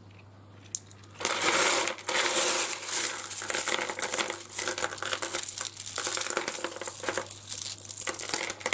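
Small pieces of rough seam opal clattering and clinking against each other as they are handled and tipped about. The dense rattling starts about a second in.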